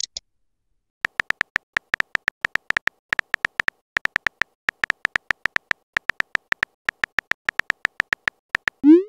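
Texting-app keyboard sound effect: a quick run of short, high, beep-like typing clicks, about six a second, starting about a second in, as a message is typed letter by letter.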